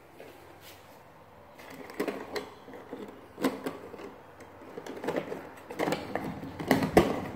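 Hand pulling and rattling loose wires in a wall electrical box: irregular scraping and rustling starting about two seconds in, with a couple of sharp clicks, the loudest near the end.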